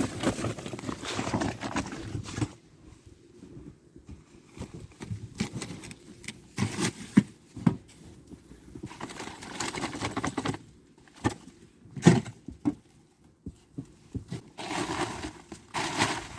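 Snow shovel scraping and pushing through wet, heavy snow in irregular strokes, with a couple of sharp knocks of the blade.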